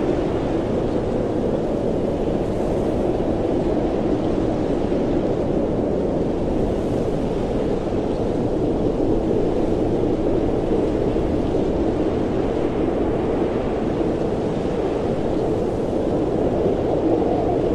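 Blizzard wind blowing steadily, a deep, even rush with no let-up.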